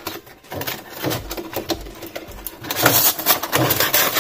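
Molded plastic packaging crackling, clicking and squeaking as a toy quadcopter is worked free of its tray. The crackling grows denser and louder in the last second and a half.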